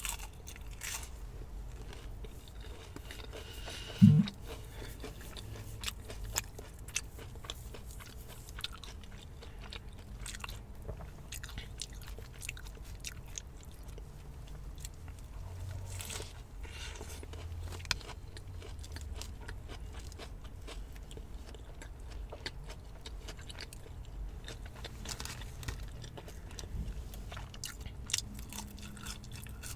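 Close-up eating sounds: crunching and chewing of fried onion rings, with many small wet mouth clicks throughout. About four seconds in there is one brief, loud throaty sound.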